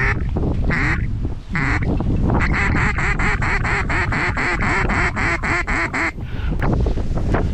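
Mallard-type quacking: a few single quacks, then a fast even run of about five quacks a second lasting some four seconds, then one or two more. Strong wind rumbles underneath.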